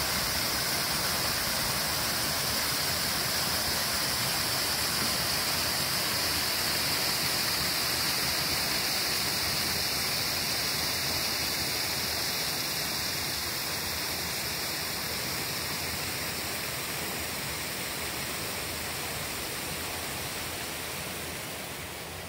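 Rushing water: a steady, even rush that slowly grows quieter over the last several seconds.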